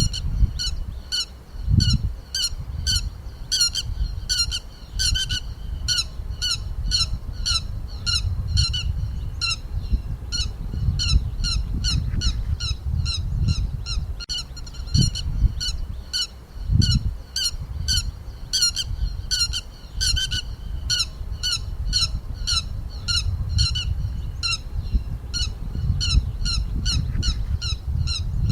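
Lapwing calling over and over, short sharp notes about two a second with only brief pauses, over a low rumble with a few thumps.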